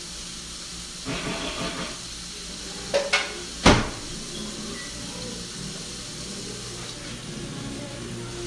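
A few light clicks and then one sharp knock about three and a half seconds in, over a steady low hum and hiss.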